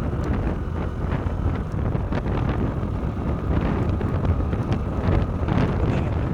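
Wind buffeting the microphone on a moving 100 cc motorcycle, a steady low rumble with road and engine noise underneath.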